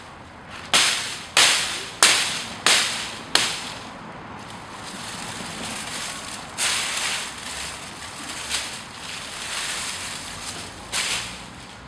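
Hatchet chopping into a fresh poplar branch: five sharp strokes in quick succession, about two-thirds of a second apart. After them come softer, uneven noise and a few lighter knocks.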